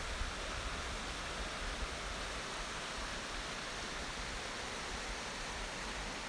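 Mountain river rushing over rocks in whitewater: a steady hiss of running water.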